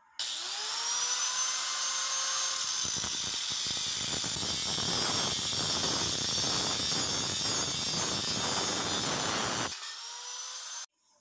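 Electric angle grinder with a cut-off disc spinning up with a rising whine, then biting into square steel tubing about three seconds in and cutting through it with a harsh grinding. Near the end the disc runs free for a moment before the grinder is switched off.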